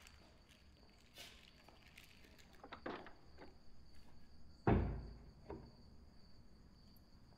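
A wooden front door shut with a single heavy thud a little past halfway through, among a few soft clicks and rustles.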